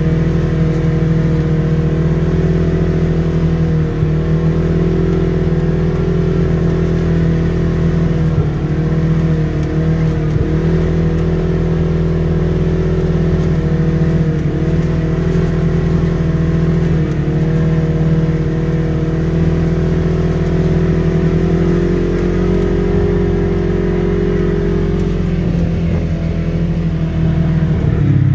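Side-by-side UTV engine running steadily under way, heard from inside the open cab; its pitch wavers slightly as the throttle eases on and off.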